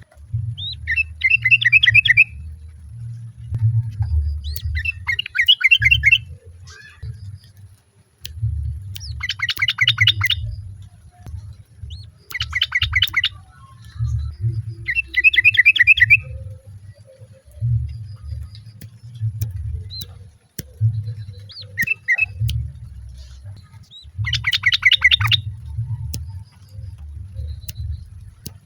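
Yellow-vented bulbul (trucukan) giving a female's call, about seven bursts of fast bubbling trilled notes, each about a second long, repeated every few seconds. A low rumble runs underneath.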